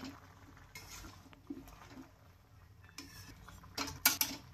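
Metal spatula scraping and clinking against a metal wok while chicken and vegetables are stirred, with a few sharper clanks near the end.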